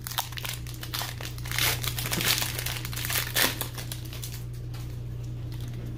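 Foil wrapper of a Pokémon trading-card booster pack crinkling as it is handled and torn open, busiest in the first three or four seconds and quieter after.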